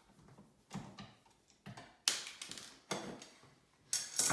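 Flathead screwdriver backing out the screws of a light switch faceplate, and the faceplate coming off the wall: a series of separate clicks, taps and scrapes, the loudest about two seconds in.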